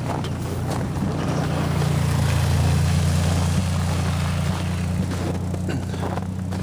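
An engine's low steady drone with a hiss over it, swelling to its loudest a little before the middle and then easing off.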